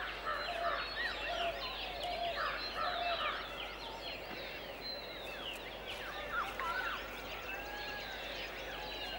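A chorus of many birds calling at once: short chirps and whistles sliding up and down, overlapping, with lower repeated calls underneath.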